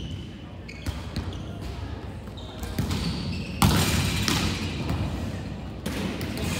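Volleyballs being struck and bouncing on a wooden gym floor: a few sharp thuds, the loudest about three and a half seconds in, echoing around a large hall.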